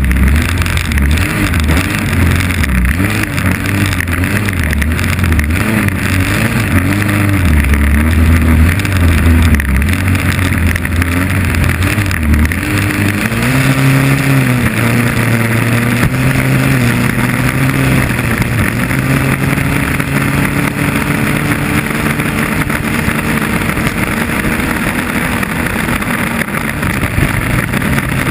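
A 2.5 Liter Stock inboard hydroplane's four-cylinder engine running at racing speed, heard from on board with a heavy rush of wind and water spray. Its pitch wavers up and down through the first half, then holds a steadier, slightly higher note from about halfway.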